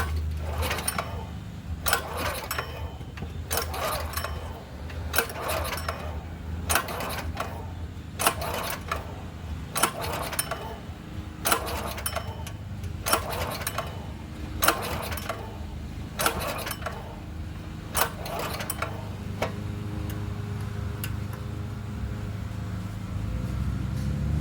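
Recoil pull-starter of a Predator 212 single-cylinder engine yanked again and again, more than a dozen quick pulls, without the engine firing, because fuel is not reaching the dry carburettor bowl. The pulls stop about five seconds before the end, leaving a steady low hum.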